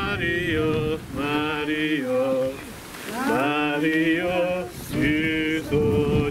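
A voice singing a liturgical chant: phrases of held notes joined by short glides in pitch, with brief breaths between them.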